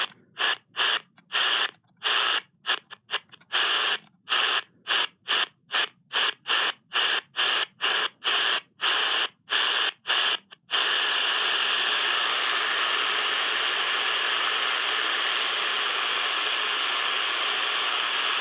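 Static hiss from a Tecsun PL-606 world band radio tuned through empty shortwave frequencies with its tuning wheel. The hiss mutes briefly at each tuning step, about twice a second, then runs steadily for the last several seconds and cuts off at the end.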